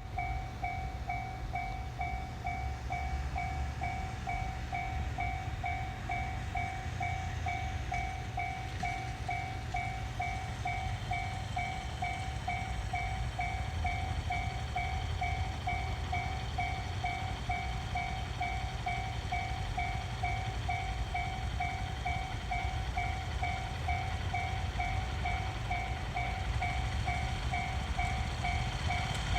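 Japanese railroad crossing warning bell ringing its steady "kan-kan" at about two strikes a second, each strike a clean two-tone ding, over a steady low rumble.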